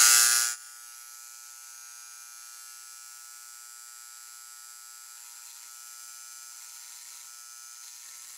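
Dremel electric engraver buzzing steadily as its carbide tip is run along a titanium lockbar under 40 V DC, carbidizing it with a layer of tungsten carbide. The buzz is loud for about the first half second, then drops to a much quieter steady level.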